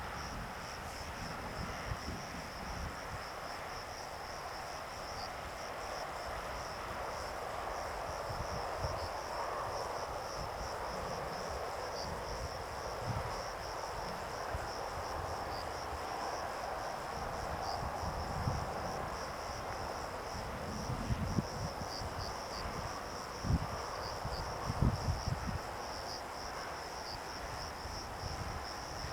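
Crickets chirping steadily in a continuous high, fast-pulsing trill, over a soft outdoor hiss. A few low thumps come in near the end.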